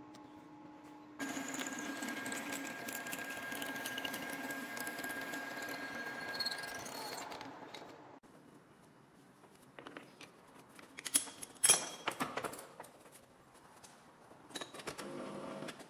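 A workshop machine running steadily with a constant high whine for about six seconds, then stopping abruptly; a few seconds later come several sharp knocks, the loudest about twelve seconds in.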